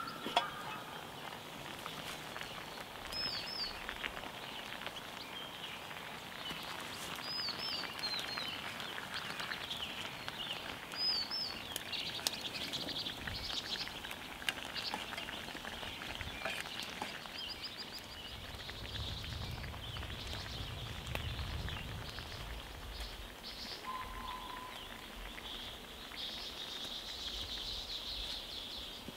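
Sandfish braising in spicy sauce in a metal mess-kit pan, the liquid bubbling with a steady crackle of small pops. A metal clink near the start as the lid comes off, and a bird chirps three times in the first half.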